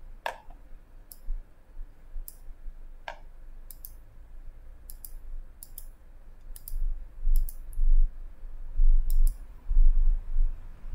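Computer mouse clicking again and again: about fifteen sharp clicks, some in quick pairs, with two fuller clicks in the first few seconds. From about seven seconds in, low dull thumps and rumble are the loudest sound.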